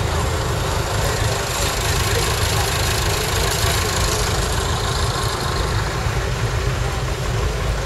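Several diesel tractor engines idling together: a steady low rumble.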